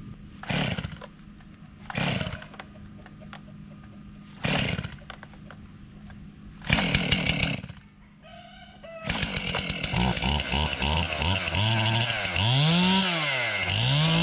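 Chainsaw being pull-started: three short pulls on the starter cord, then a brief sputtering firing. The engine catches about nine seconds in and runs, revving up and down several times near the end.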